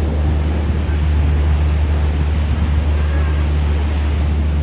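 Surf washing onto the beach over a steady low drone from a Canadair firefighting water bomber's engines as it skims the sea to scoop water.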